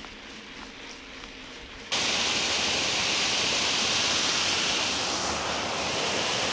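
Steady loud rushing hiss of a bicycle on the move, the tyres and the wind on the camera. It cuts in suddenly about two seconds in, after a fainter hiss.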